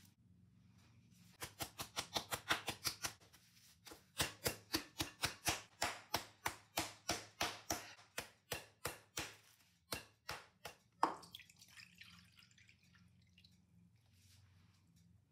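Meat mallet pounding chicken breasts flat through plastic wrap on a wooden cutting board. The strikes come in quick runs of about five a second, with a short pause about three seconds in, then slow to a few separate blows, the last and loudest about eleven seconds in.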